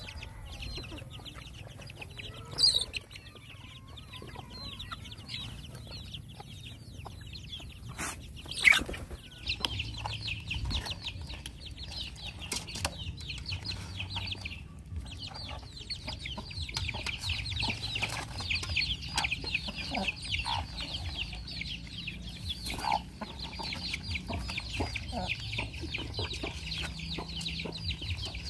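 Chickens clucking close by while dogs eat from a metal bowl, with scattered clicks and knocks. From about ten seconds in, a dense, fast high ticking runs on through the rest.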